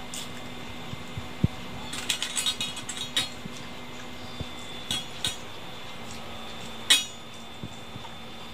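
Rings and metal bangles on a hand clinking against a steel plate as the hand mixes and scoops rice: a flurry of small clinks about two seconds in, a couple more around five seconds, and one sharper clink near seven seconds.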